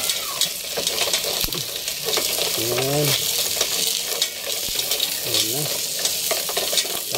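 Green mussels in their shells sizzling in hot oil with sautéed garlic and onion, stirred with a plastic rice paddle. A steady frying hiss runs under frequent light clicks of shells and paddle against the pot.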